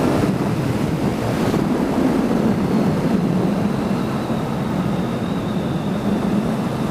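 Motorcycle riding along at a steady speed: the engine's steady hum under heavy wind rush on the microphone.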